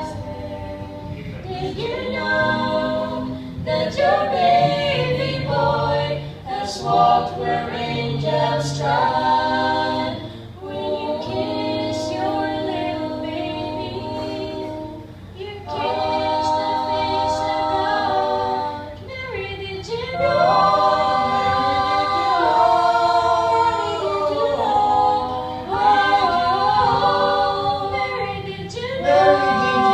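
Mixed a cappella vocal group of five singing in layered close harmony, with a low bass voice holding notes beneath the upper parts. The chords are held for several seconds at a time, with brief dips between phrases.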